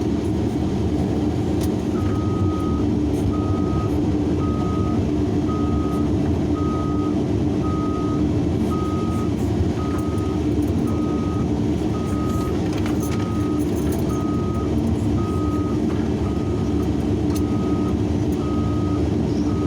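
Large excavator's diesel engine running steadily with a low hum, and a reversing alarm that starts beeping about two seconds in, about once a second.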